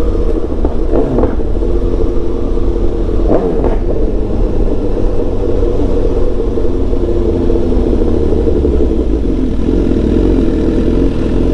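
BMW S1000XR's inline-four engine running steadily at low town-riding speed, heard from the rider's seat, over a low rumble.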